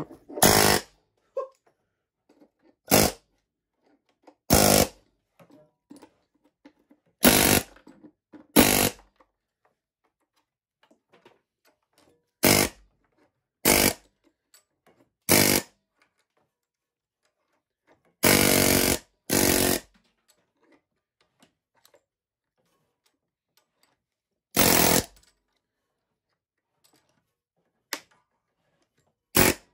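Pneumatic air hammer firing in about a dozen short, loud bursts separated by pauses, the longest lasting over a second, as it chisels melted plastic off a fire-damaged lawnmower hood.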